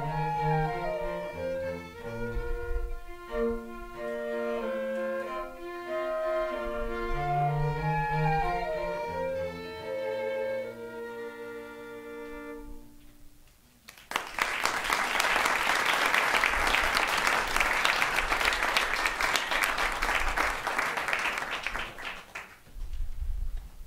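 A chamber trio of violin and cello plays the closing bars of a classical piece, ending on a held final chord that dies away about 13 seconds in. After a brief pause, an audience applauds for about eight seconds.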